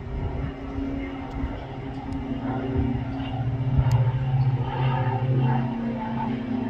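An engine running with a steady low hum, growing louder about three seconds in.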